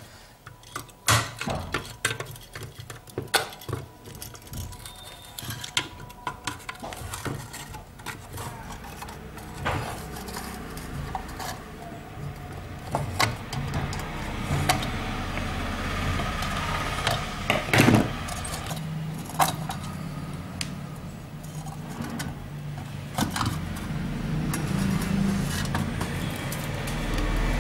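Pliers and metal parts of a dry electric iron clicking and clinking as its bolt is unscrewed and the handle and cover are worked loose: scattered sharp clicks and scrapes. A low steady rumble builds in the background near the end.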